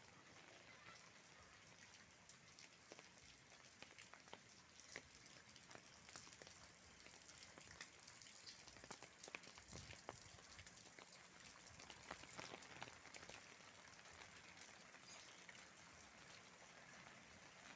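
Faint rain falling, with many separate drops ticking sharply on a surface, more of them in the middle stretch.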